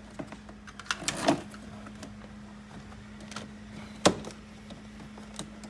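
Sharp plastic clicks and knocks from handling a Toyota Hilux door's switch panel and trim, loudest about a second in and again about four seconds in, over a steady low hum.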